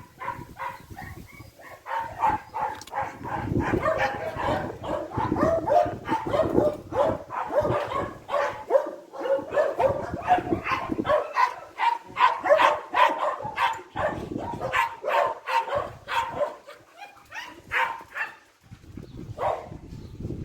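Dogs barking and yipping in quick, overlapping short calls, with a few brief pauses.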